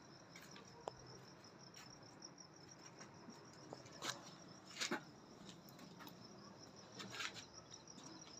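Faint crickets chirping in a fast, even pulse, with a few soft knocks here and there.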